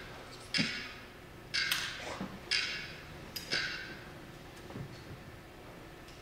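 Clock ticking: four sharp ticks about a second apart, then a pause near the end.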